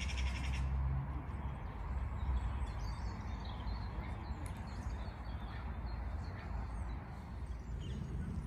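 A crow's harsh caw ends about half a second in, followed by faint, scattered chirps of small birds over a steady low rumble.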